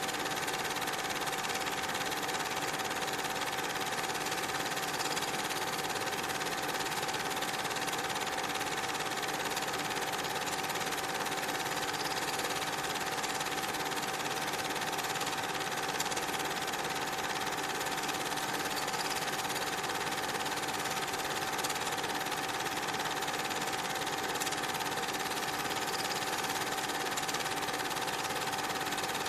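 A cine film projector running: a steady mechanical whirr and clatter with a constant hum, unchanging throughout.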